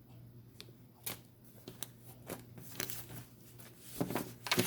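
Tarot cards being handled and shuffled: scattered soft card snaps and rustles, with a quicker flurry about four seconds in.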